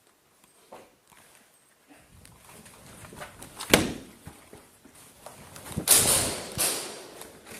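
Knocks and scuffling noises, with one sharp crack a little under four seconds in and a louder, noisy stretch of several hits around six seconds in.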